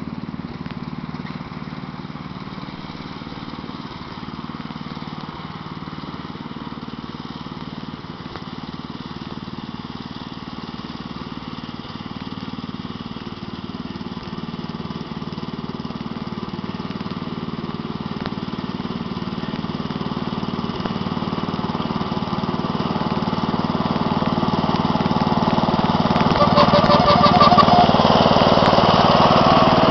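Wheel Horse 211-3 garden tractor's 11 hp Briggs & Stratton petrol engine running steadily under way, growing louder over the second half.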